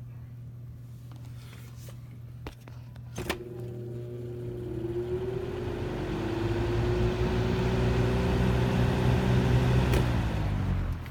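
Lasko 3733 box fan switched on with a click about three seconds in: the motor hum rises in pitch as it spins up and the rush of air grows steadily louder. Near the end it is clicked off and winds down, over a steady low hum that runs throughout.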